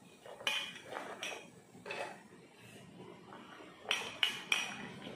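Chopped coconut pieces dropped into an empty stainless-steel mixer-grinder jar, knocking against the metal: a few light knocks, then three sharper ones in quick succession about four seconds in.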